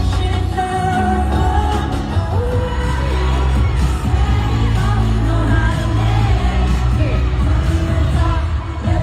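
Pop song with singing over a heavy bass beat.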